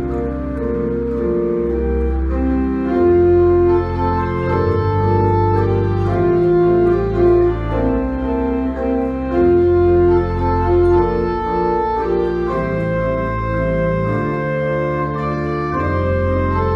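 Church organ played on manuals and pedalboard: sustained chords that move from one to the next over held deep pedal bass notes.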